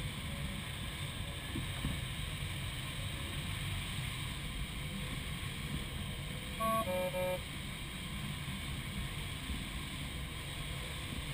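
Steady rushing airflow inside the cockpit of a Grob Astir 77 glider in flight, with a short run of stepped beeping tones about seven seconds in.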